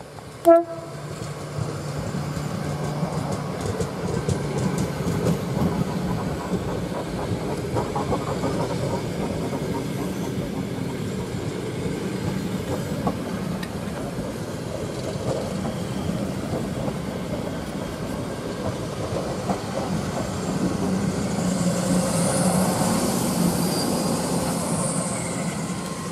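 An ED4M electric multiple unit gives one short horn blast about half a second in. Its cars then roll past with a steady rumble and wheels clattering over the rail joints. Near the end a high hiss swells as the train comes in to stop.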